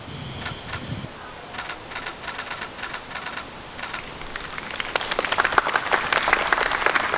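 A small group of people clapping, scattered at first and building into steady applause over the last few seconds.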